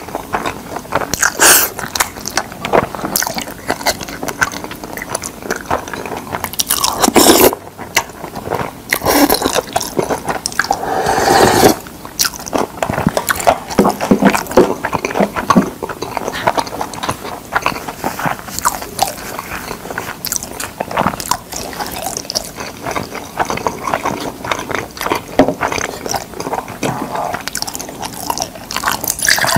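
Close-miked wet chewing of a mouthful of mixed rice, with dense clicking and smacking mouth sounds throughout. Two louder, longer stretches come about 7 and 11 seconds in.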